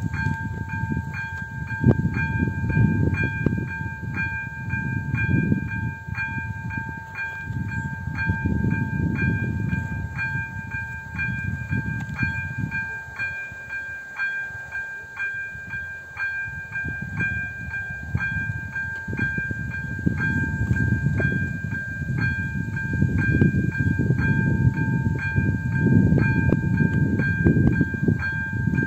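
Electronic warning bell of an AŽD 97 railway level crossing sounding, a steady two-note tone with a ding about twice a second, signalling that a train is approaching. A low rumbling noise swells and fades underneath.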